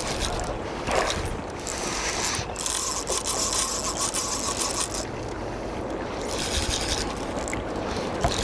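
Water sloshing and splashing around a small fishing boat, with wind noise; the hiss swells for a few seconds near the middle.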